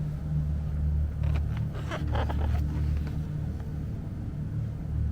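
Low, droning ambient background music throughout, with a short spell of rustling and handling noise, packaging being handled, about one to three seconds in.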